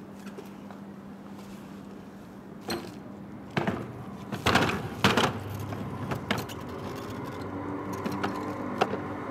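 Plastic wheelie bin being hauled out through a doorway and bumped down the step onto the pavement: a handful of knocks and clatters, the loudest two about four and a half and five seconds in, over a steady low hum.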